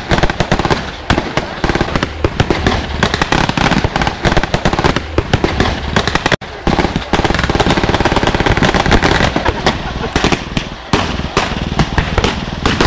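Dense, continuous small-arms gunfire from many rifles and machine guns firing blanks at once in a staged battle, a rapid crackle of overlapping shots, with men's voices shouting underneath.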